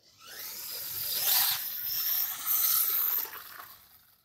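Small electric RC car (WLtoys 12428) driving over concrete paving blocks: a motor whine under the hiss of its tyres, building over the first second or so and fading out near the end.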